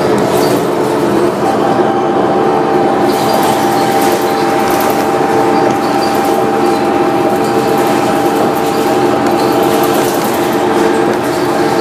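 Interior of a New Flyer D40LF diesel transit bus under way: engine and drivetrain running steadily with a constant whine, over road noise and light rattles.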